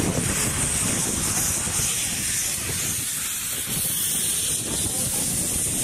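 Narrow-gauge saddle-tank steam locomotive moving slowly past, hissing steam steadily, with a low rumble underneath. Steam pours out at rail level around its cylinders, as from open cylinder drain cocks.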